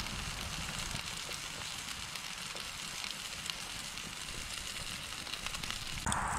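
Wood campfire burning: a steady hiss with many scattered sharp crackles and pops, growing louder near the end.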